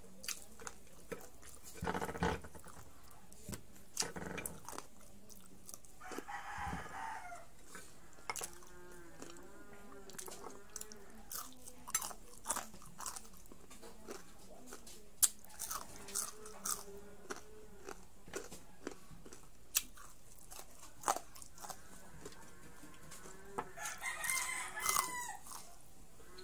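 Close-up crunching and chewing of crispy deep-fried pork strips, with many sharp crisp clicks and mouth sounds. A chicken clucks in the background in several short runs of repeated calls.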